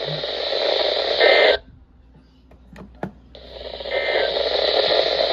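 NOAA Weather Radio broadcast heard through heavy static, with two short bursts of EAS data tones about three seconds apart, the end-of-message signal closing the alert. Between the bursts the signal drops out for nearly two seconds, leaving only faint clicks.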